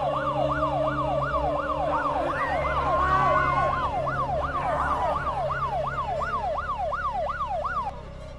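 Fast yelping siren, its pitch sweeping up and down about three times a second over a low steady hum; a second wavering tone joins it briefly in the middle, and it stops about eight seconds in.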